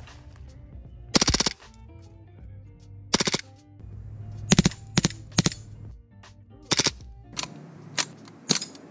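Handgun fired in a series of sharp shots, the first few in quick bursts about a second and three seconds in, then single shots spaced roughly half a second to a second apart. Background music plays under the shots.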